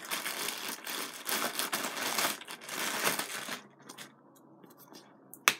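Clear plastic wrapping crinkling and tearing as it is pulled off a plush puppet, dense for about three and a half seconds, then a few faint rustles and one sharp click near the end.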